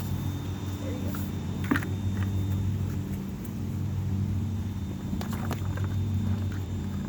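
A motor running with a steady low hum throughout, with a few short knocks or scrapes about two seconds in and again around five seconds in.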